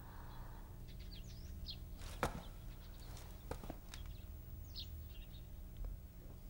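Small birds chirping in short quick calls over a steady low hum, with a soft click about two seconds in and a couple more a little later.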